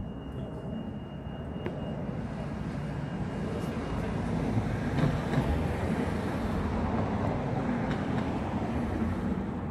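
A vehicle passing: a rumbling noise that swells over the first few seconds, peaks about halfway through and eases off near the end.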